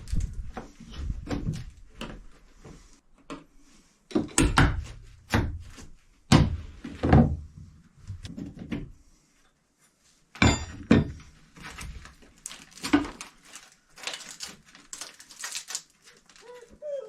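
Hand-tool demolition in a boat's galley: irregular knocks, thuds and scrapes as a copper plate and old fittings are worked loose, with a short pause about two-thirds of the way through.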